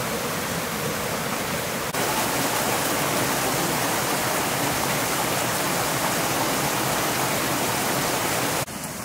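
Steady rushing of a rocky stream's flowing water, a little louder from about two seconds in.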